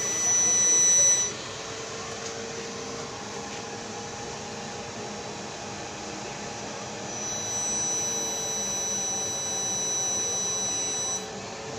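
High-pitched test tone from an amplifier under bench test, full of overtones. It sounds for about the first second, stops, and comes back steady from about seven seconds in until shortly before the end. A steady background hum runs under it.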